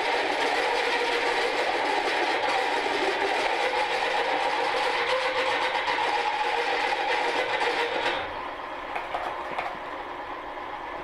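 Milling machine's angle head driving a large drill into the end of a steel truck tie rod: a steady grinding cutting noise with a hiss, the motor turning slowly on a very low supply frequency. About eight seconds in the noise turns quieter and duller.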